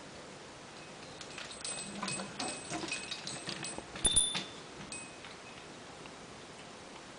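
African grey parrot busy at its cage or toy: a run of small clicks and taps mixed with short, high tinkling notes, with one louder knock and ring about four seconds in.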